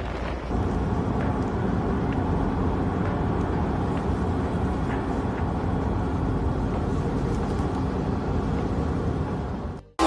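Strong wind buffeting the microphone, a steady low rumble with faint crackles. It cuts off suddenly near the end.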